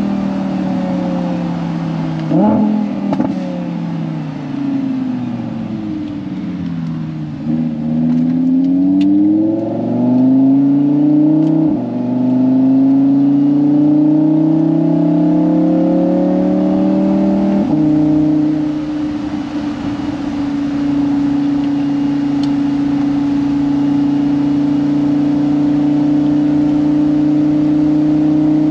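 Audi R8 V10 Spyder's naturally aspirated V10 through an ASG exhaust with its valves open. Revs flare sharply about two seconds in and sink away, then climb in a long pull. They drop suddenly at an upshift about 18 seconds in, after which the engine holds a steady cruising pitch.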